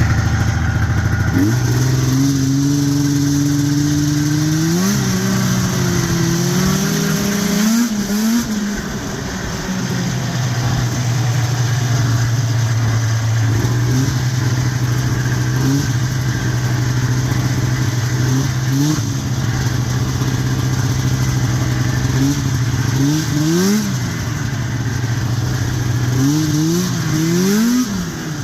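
1990 Arctic Cat EXT 530 snowmobile's two-stroke engine idling steadily, with short throttle blips that rise and fall in pitch: two longer revs early on, single blips through the middle, and several quick blips in a row near the end.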